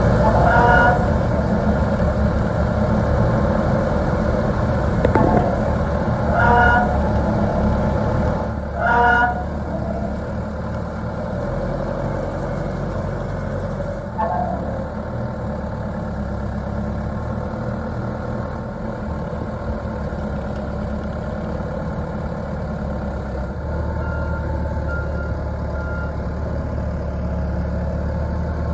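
Diesel engine of a Volvo BL70B backhoe loader running steadily, with three short horn toots in the first nine seconds and a few faint short beeps near the end.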